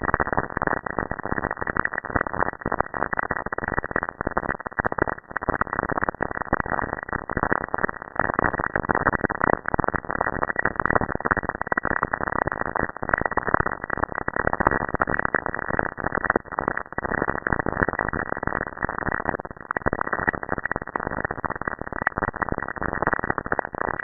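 Saturn's radio emissions picked up by a spacecraft and converted to sound: a dense, steady crackle of static with many rapid clicks, all in a muffled lower range.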